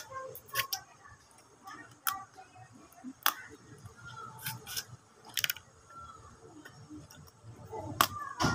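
Close-up eating sounds of a person biting into crab shell and chewing: irregular sharp cracks and clicks about a second apart, the loudest near the end, with softer chewing and mouth noises between them.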